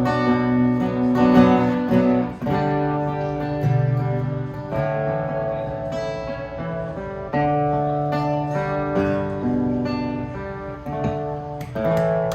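Acoustic guitar strumming and letting chords ring, playing the instrumental close of a song without vocals.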